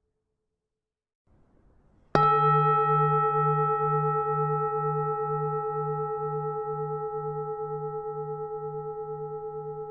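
Buddhist temple bell struck once about two seconds in, then ringing on in a long, slowly fading hum, its low tone pulsing about twice a second.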